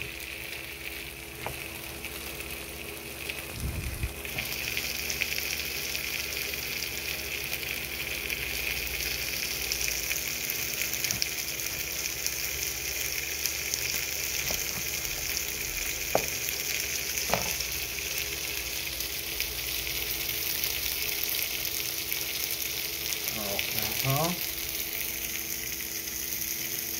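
Food frying in a pan: a steady crackling sizzle that grows louder about four seconds in, with a few sharp knife taps on a cutting board.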